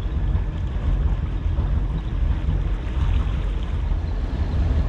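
Motorboat underway: a steady low engine rumble mixed with wind and water noise.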